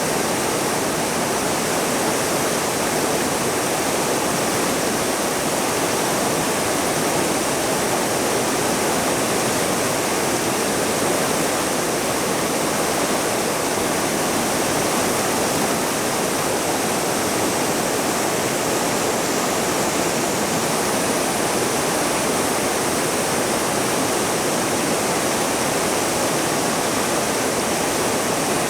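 Small waterfall and river rapids pouring and rushing, a loud, steady roar of falling water.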